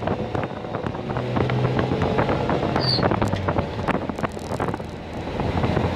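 1947 Chevrolet pickup's engine running as the truck drives at road speed, heard from inside the cab with wind noise over the microphone. The engine's hum steps down a little in pitch about halfway through.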